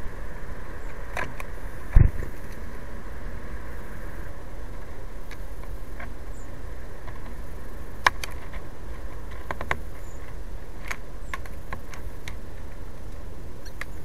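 Scattered sharp clicks and taps from a blue tit feeding at a seed feeder, pecking at seeds and shifting its feet on the tray, with one heavier thump about two seconds in. A steady low background rumble runs underneath.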